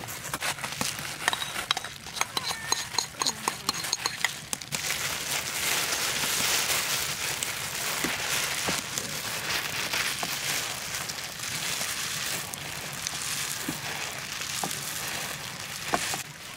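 Loose plastic gloves crinkling with many sharp clicks, then, from about five seconds in, a steady wet, crackly squishing as gloved hands toss and knead instant noodles coated in chili paste.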